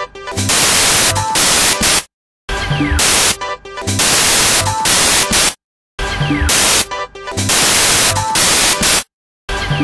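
Electronic background music with loud hissing noise bursts and a beat. It cuts to silence for about half a second roughly every three and a half seconds, in a repeating loop.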